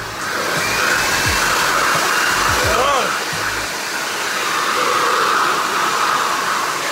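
Leaf blower running steadily at full blast, a loud even rush of air from its nozzle aimed at close range into a person's face.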